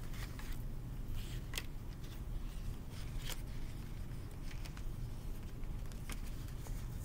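A sheet of paper being handled, folded and curled by hand, giving a few scattered soft crackles and rustles over a steady low hum.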